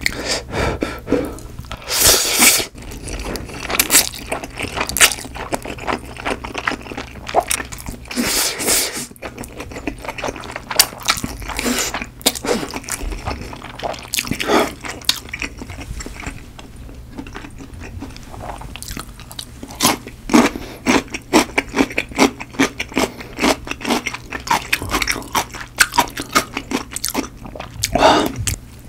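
Close-miked eating sounds of creamy carbonara Buldak spicy noodles: two long slurps in the first ten seconds, then steady wet chewing with many small mouth clicks.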